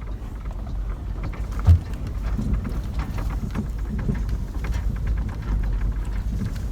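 Low rumble and rattling of a vehicle driving over a rough road, heard from inside, with one sharp thump about two seconds in.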